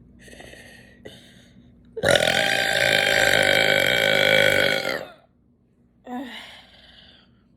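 A person burping: one long, loud burp of about three seconds at a steady pitch, starting about two seconds in. A couple of faint short sounds come before it and a brief one after.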